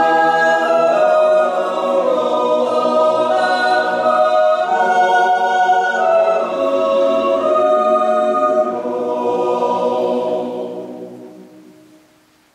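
Swiss yodel choir of men's and women's voices singing a cappella in sustained chords. The phrase fades away near the end.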